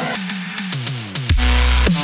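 Electronic dance music: a run of falling synth notes sweeping down into a heavy bass drop about a second in.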